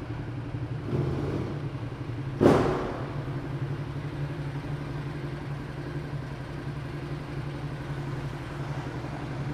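Ducati Multistrada 1200's L-twin engine running at a steady pitch, heard from the rider's seat. About two and a half seconds in there is one brief, loud thump.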